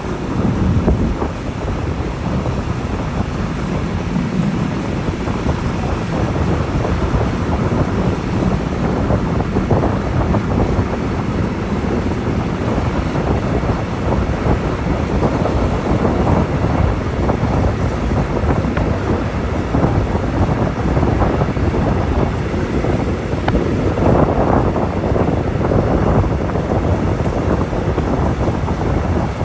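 Wind buffeting a microphone held out of the window of a moving passenger train, over the steady running rumble of the coaches on the rails.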